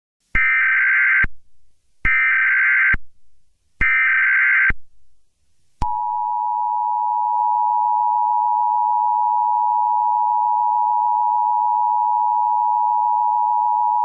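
Emergency Alert System SAME header: three short data bursts of about a second each, warbling between two high tones. About a second later the EAS two-tone attention signal starts, a steady dual tone held for about eight seconds that cuts off at the very end. The header and tone mark the start of an alert message.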